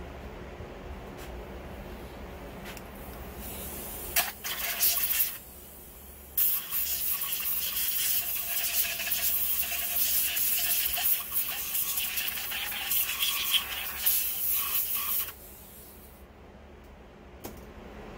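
Small power tool spinning a wire brush against the outboard lower unit's water pump base around the drive shaft, scrubbing the mating surface clean. It runs in a short burst about four seconds in, stops for about a second, then runs again for about nine seconds.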